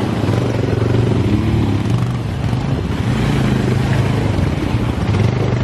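ATV engine running steadily under way, its note rising and falling only slightly.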